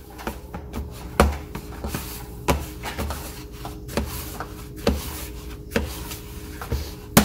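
Hands folding and pressing sticky sourdough dough in a plastic mixing bowl: soft thumps and rubbing of the wet dough, about one thump every second or so.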